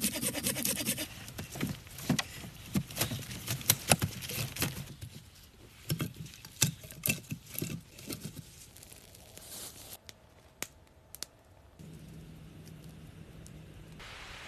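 Hand saw cutting through a sapling in quick, even strokes, then a run of sharp, irregular wooden knocks and clatters as cut poles are handled and laid down. It goes quieter after that, with a few scattered clicks.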